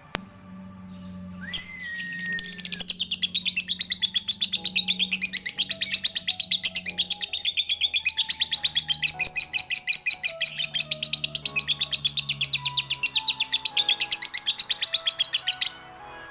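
Lovebird chattering (ngekek): after a short whistled note, a long unbroken string of rapid high chirps, about seven a second, that breaks off just before the end. This is the kind of long, continuous song that keepers hold to be promising for 'konslet'.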